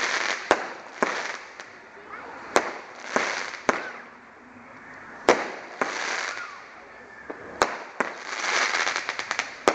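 Aerial fireworks going off overhead: a sharp bang every second or two, each followed by crackling sparks. Near the end comes a rapid run of crackles.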